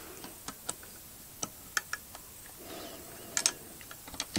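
Light metallic clicks and clinks of small hand tools against bolts and the exhaust parts of a 2-stroke generator during reassembly, coming at irregular intervals, with a quick pair of louder clinks a little past three seconds in.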